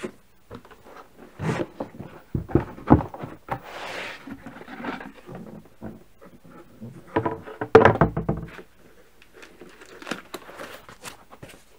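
Cardboard shipping box being opened by hand: the lid and flaps scrape, slide and knock, with a heavier thump about eight seconds in.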